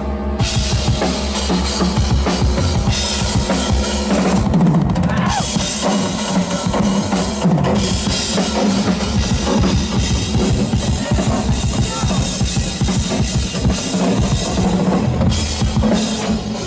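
Live drum kit played fast and busy, with kick drum, snare and cymbals over a steady low synthesizer drone.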